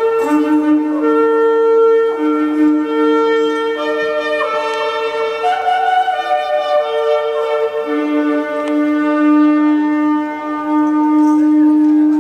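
Shofar (ram's horn) blown in long held notes at two main pitches that overlap in places, with a short upward glide about four and a half seconds in.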